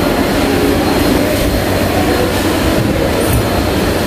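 Steady, loud mechanical rush and hum of background machinery, even and unbroken.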